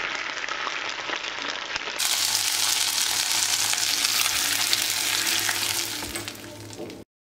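Hot mint butter sizzling on the surface of a pot of flour soup as a ladle stirs it in. It fades near the end, then cuts off abruptly.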